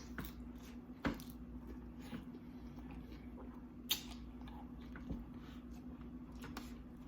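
Close-up eating sounds from a mouthful of seafood nachos: wet chewing and lip smacks, with a few sharper clicks about one, four and five seconds in, over a steady low hum.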